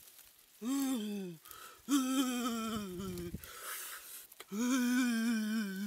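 A man's voice making three drawn-out humming, moaning sounds without words, each a second or more long, the last wavering in pitch; a soft rustle of dry nest grass comes between the second and third.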